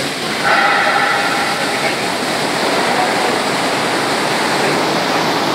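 Steady, loud rushing noise of rolling mill machinery, with a faint high-pitched whine from about half a second in that fades after a second and a half.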